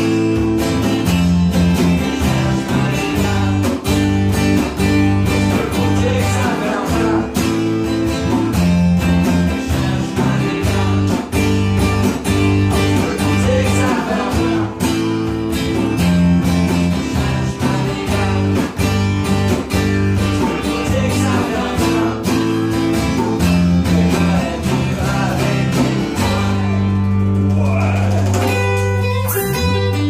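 Acoustic trio playing: strummed acoustic guitar, acoustic bass guitar and djembe hand drum in a steady rhythm. About four seconds before the end they hold one long chord that rings out.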